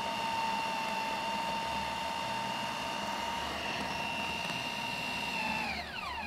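Food processor motor running at a steady high whine while blending kibbeh dough of minced meat and soaked bulgur. Near the end it is switched off and its pitch falls as it spins down.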